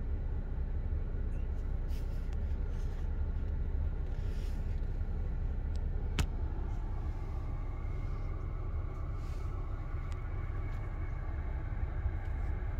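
Kia Stinger GT's 3.3-litre twin-turbo V6 with a Bastuck exhaust idling steadily in Park: a low rumble heard from inside the cabin. A single sharp click comes about six seconds in.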